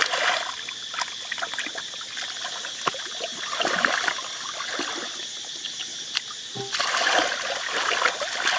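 Hands sloshing and scooping through shallow muddy water and thick mud, with wet splashes, squelches and trickling. The splashing gets louder about seven seconds in.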